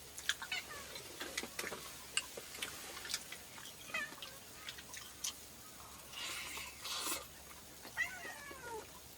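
A pet's short, high cries, several of them falling in pitch, as if whining or mewing for attention, among scattered small clicks and taps.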